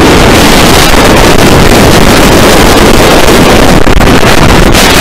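Wind blasting over the microphone together with the steady rumble of a B&M wing coaster train running at speed along its steel track, very loud throughout.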